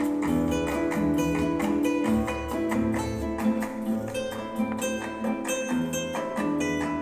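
Tango music with a plucked guitar prominent, playing steadily.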